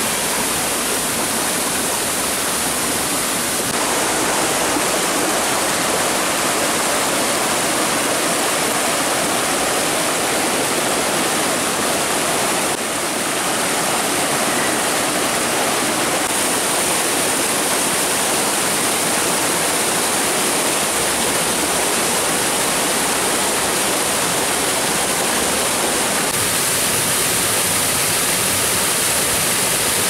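Water rushing and splashing over boulders in a rocky stream's small cascades and waterfall: a loud, steady rush whose tone shifts slightly a few times.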